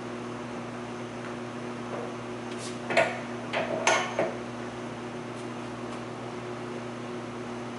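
Steady electrical hum of running equipment, with a short cluster of clicks and knocks about three to four seconds in.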